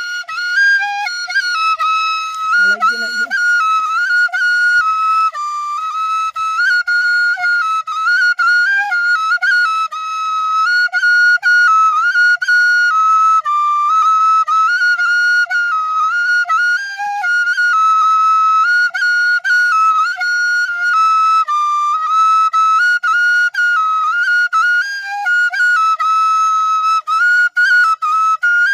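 Bansuri (bamboo flute) playing a high melody that moves up and down within a narrow range of notes, broken by many short gaps between phrases.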